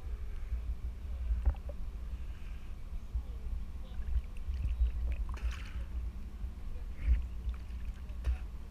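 Steady low rumble of a small boat lying alongside a ship's hull, with water sloshing and a few short sharp knocks.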